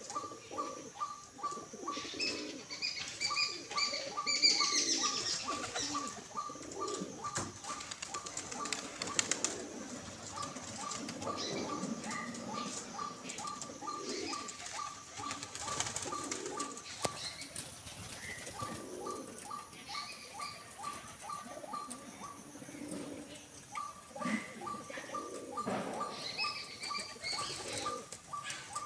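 Domestic pigeons cooing softly as they feed, with a few bursts of wing flapping. Behind them a fast, even ticking call repeats about four times a second in long runs, and now and then higher chirps come in.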